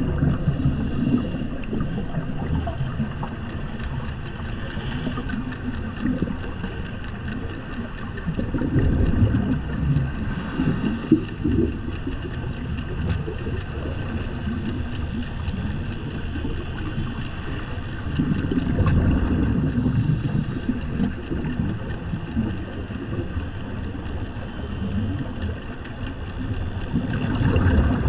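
Underwater sound of a scuba diver breathing on an open-circuit regulator: a short hiss on each inhale and a rumbling gush of exhaled bubbles, repeating about every ten seconds, over a steady low underwater rumble.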